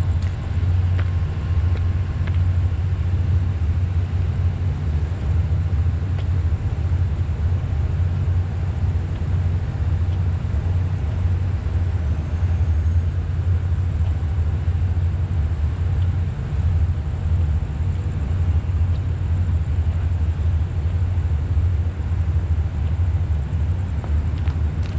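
A steady low rumble with a faint, high, steady tone above it.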